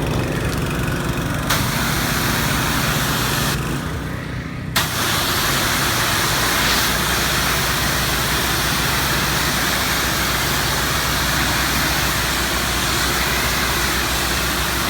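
Three small petrol pressure-washer engines running together, joined by the loud hiss of the high-pressure water jet when the spray gun is triggered. The spray starts about a second and a half in, stops briefly around three and a half seconds, then comes back on and runs steadily.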